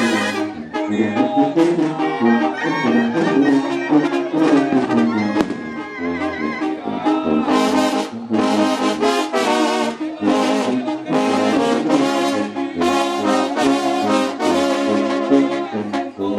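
Mexican banda brass band playing, trumpets and trombones over a low bass line, the horns sounding short repeated chords in a steady rhythm.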